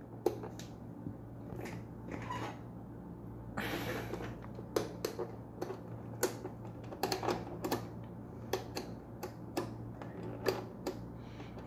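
Sharp, irregular clicks of a Geepas rechargeable desk fan's push and slide switches being worked over and over. The fan motor does not start: the fan has no power even though it shows it is charging. There is a brief rushing noise about four seconds in.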